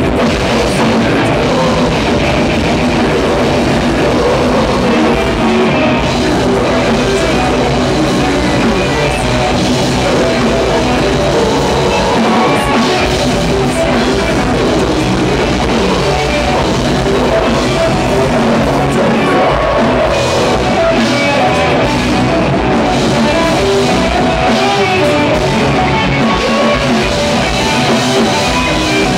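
A death/grind band playing live: distorted guitars and bass with fast, dense drums, the wall of sound loud and unbroken throughout. A live audience recording, heavily saturated.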